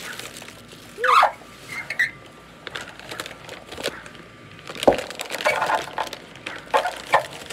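Plastic packaging and bubble wrap crinkling and rustling in quick irregular crackles as a potted plant is unwrapped, busiest in the second half, with a short rising-and-falling whine about a second in.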